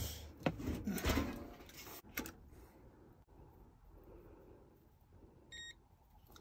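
Knocks and rattles from handling at the open cabinet of an air handler during the first two seconds, then quiet with one short electronic beep from a handheld meter near the end.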